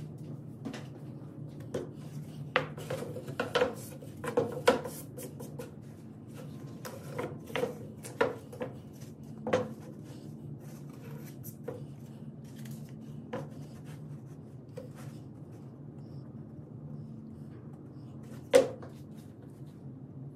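Irregular knocks, clinks and rubbing of parts and tools being handled at a workbench, with the loudest single knock near the end, over a steady low hum.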